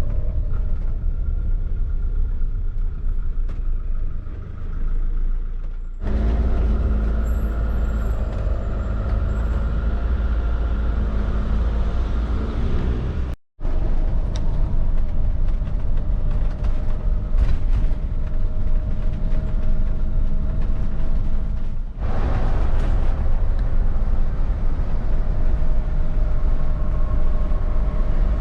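Motorhome on a Fiat Ducato chassis driving along a road, its engine and tyre noise a steady rumble. The sound changes abruptly about six seconds in, cuts out briefly around halfway, and changes again near the end.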